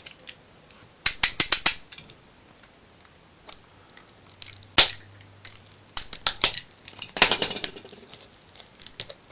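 Cellophane shrink-wrap on a small phone box being cut and pulled off by hand: quick clusters of sharp clicks and snaps of the plastic, the loudest a single sharp snap about halfway through, with a short crinkle of plastic a little after that.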